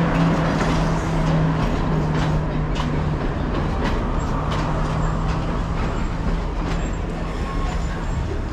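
Class S12 diesel multiple unit rolling slowly along a station platform to a stop: the steady low hum of its diesel engine over the rumble of the wheels, with a few light clicks.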